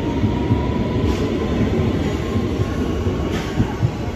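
London Underground Metropolitan line S8 Stock train moving out along the platform: a steady rumble of wheels on the rails, with a faint whine and a few light clicks.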